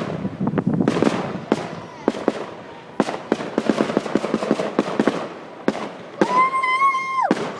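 Fireworks going off: a run of sharp bangs and pops, with a rapid crackle in the middle. Near the end a steady horn-like tone sounds for about a second.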